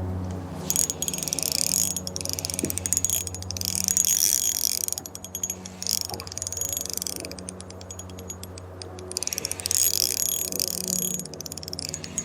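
The drag of a Shimano Soare XR spinning reel clicking in fast runs as a hooked bluegill takes line, with short pauses between runs. The drag runs on a felt washer with drag grease, which gives an even, countable click.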